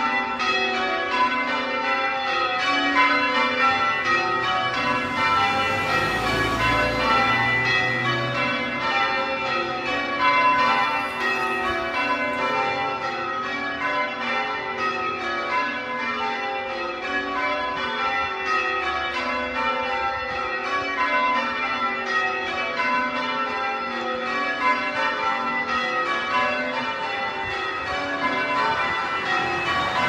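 Church tower bells change ringing, the bells striking one after another in a steady, unbroken sequence.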